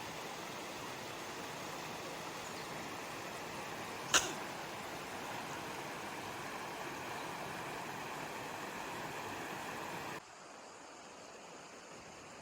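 Steady rushing noise with a single sharp click about four seconds in; the noise drops abruptly to a quieter, thinner hiss near the end.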